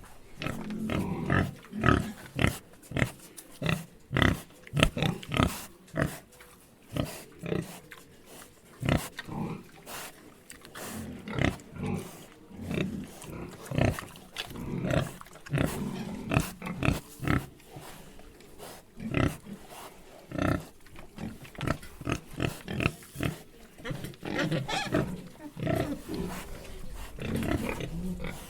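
Pigs grunting and oinking, many short, irregular low calls following one another, with now and then a higher squeal.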